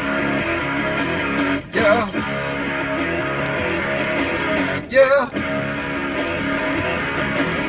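A song with steadily strummed guitar, with short wavering sung phrases about two and five seconds in.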